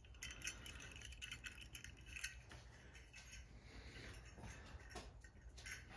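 Faint scattered clicks and light metallic clinks of a ceiling-fan light-kit housing and its wires being handled, over a low steady hum.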